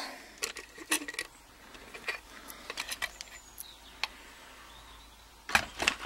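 Scattered light metallic clicks and clinks as a Mul-T-Lock lock cylinder is handled and taken out of a bench vise, with a quick run of clicks near the end.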